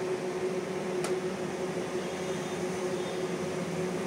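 Steady hum of a running machine, made of a few held tones, with one faint click about a second in.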